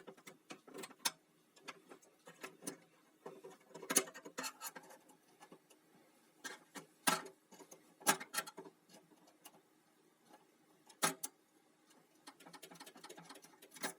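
Irregular small clicks and taps of a hand tool against screws and metal parts as the side cover of a Janome 525S sewing machine is unscrewed and taken off.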